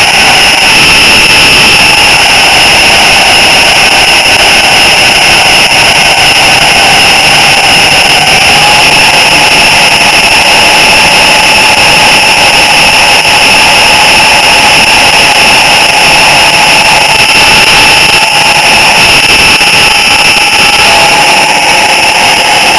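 H0-scale model train running along the track, heard up close through a camera riding on the train: a loud, steady whir and rumble with a high whine from the motor and gearing. The whine rises slightly in pitch about eight seconds in.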